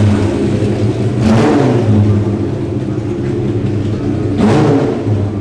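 BMW 3.0 CSL race car's straight-six engine idling loudly, blipped twice with quick revs that rise and fall, about a second in and near the end.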